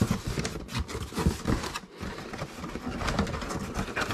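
Cardboard box and packaging being handled and opened: irregular scrapes, rustles and knocks.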